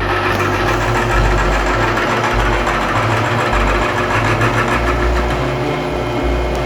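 CNC-retrofitted MR-199 milling machine cutting steel: the spindle and cutter run steadily under load, with a dense, continuous cutting noise.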